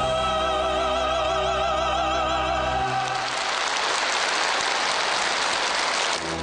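A singer holds a long final note with strong vibrato over the accompaniment, and the music ends about three seconds in. An audience then applauds for about three seconds.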